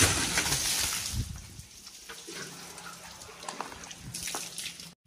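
A splash of water thrown over a small truck model, hitting the cab and windshield and running off. It starts with a sudden loud splash that fades over about a second and a half, then small drips, and a second splash a little after four seconds in.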